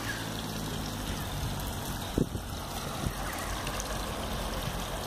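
Park fountain's water splashing and trickling steadily into its stone basin, with a low steady hum underneath and a brief thump about two seconds in.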